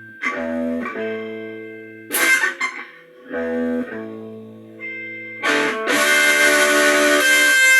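Blues guitar playing: single plucked notes ringing out, with a bright strummed hit about two seconds in. The music thickens into a fuller, louder passage about five and a half seconds in.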